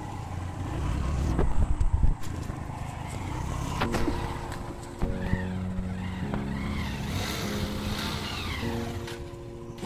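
Motorcycle engine labouring through deep mud on a dirt track, loud and uneven with jolting peaks in the first two seconds. From about four seconds in, background music with held chords that change every second or so plays over it.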